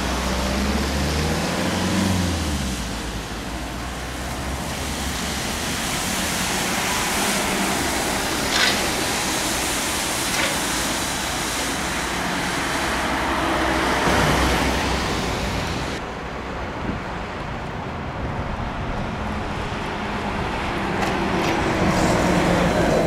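Trolleybuses passing on a city street under overhead wires, with tyre and traffic noise throughout. In the first couple of seconds the electric traction motor's whine rises in pitch as a trolleybus pulls away. Two sharp clicks come in the middle, and a steady motor whine returns near the end.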